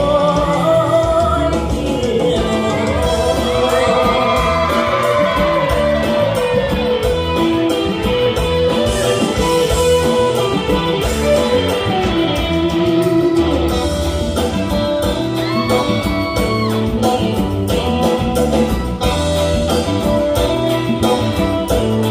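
Recorded song with a singing voice over instruments and a steady beat, played over stage loudspeakers as dance music.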